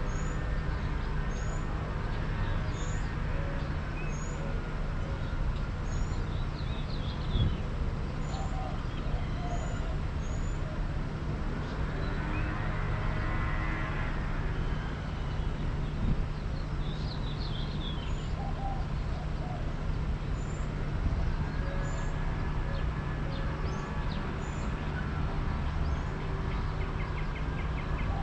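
Street ambience: a steady low traffic hum, with a vehicle passing by about halfway through and another late on. Small birds chirp repeatedly throughout.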